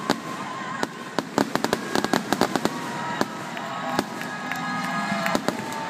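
Aerial fireworks shells bursting in a rapid, irregular string of sharp bangs and crackles, several a second. Long held calls from the crowd sound underneath.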